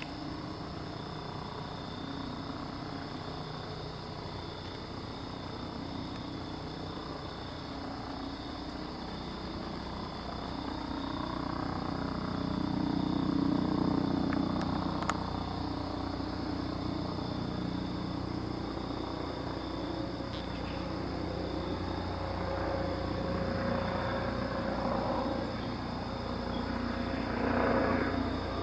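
Police Eurocopter EC135 twin-turbine helicopter flying over at about 1,600 ft: a distant, steady rotor and engine drone that grows louder about halfway through and swells again near the end.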